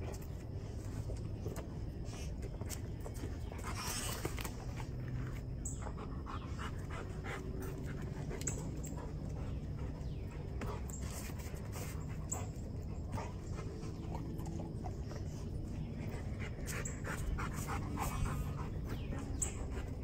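A dog panting, over a steady low hum.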